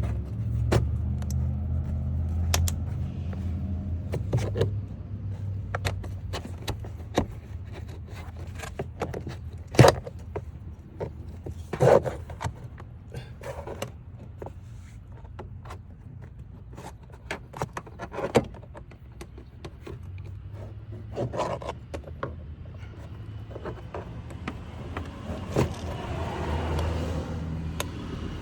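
Pry tool working the plastic retaining clips of a Honda Accord's door trim panel: scattered clicks, taps and scrapes, with a sharper snap about ten seconds in and another about two seconds later, over a low steady hum.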